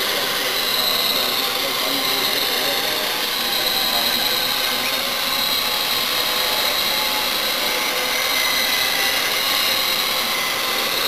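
Small electric radio-controlled helicopters hovering, their motors and rotors making a steady high whine that wavers slightly in pitch.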